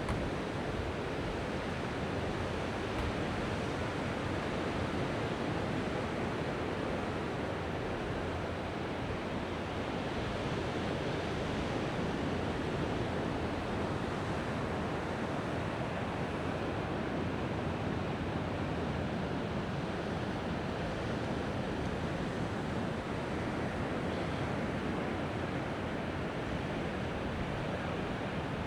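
Mediterranean sea surf washing onto the beach: a steady, even rush of breaking waves.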